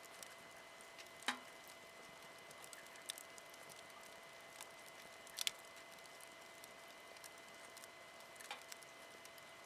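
Wood campfire crackling faintly: a low hiss broken by a few sharp, scattered pops, the loudest about a second in and another just past five seconds.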